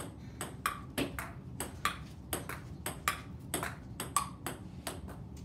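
Table tennis rally: the celluloid ball clicks sharply off the paddles and bounces on the table, about four clicks a second.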